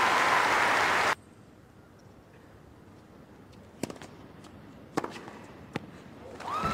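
Crowd applause that cuts off abruptly about a second in, leaving a quiet court where tennis balls are struck three times off racquets, sharp single cracks spaced about a second apart; crowd noise swells again near the end as the point finishes.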